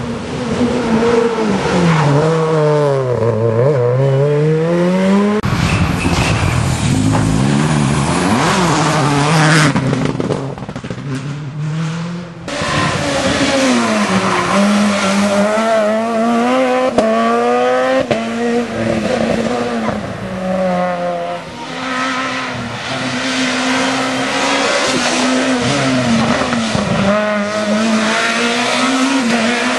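Rally car engines revving hard, the pitch climbing and dropping again and again as they shift gears through tight tarmac bends. Several passes are cut together, with abrupt changes about five seconds in and again about twelve seconds in.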